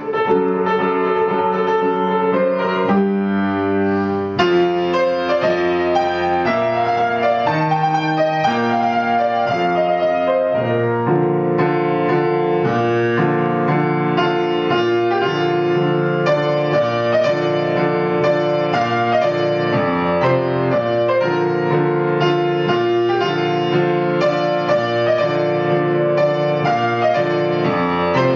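Instrumental background music: a piano playing a steady flow of notes and chords.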